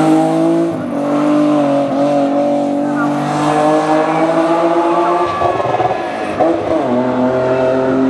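Race car engine running hard up a hill climb course, its pitch climbing slowly and dipping several times at gear changes, settling at a lower pitch near the end.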